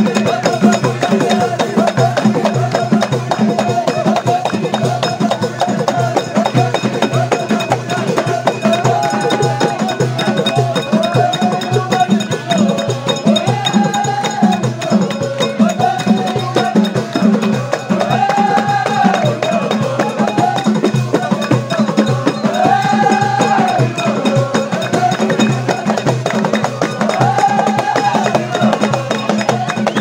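Live traditional folk music in a crowd: a steady, quick beat of percussion and hand claps, with a melody that from about a third of the way in repeats the same rising-and-falling phrase every four to five seconds.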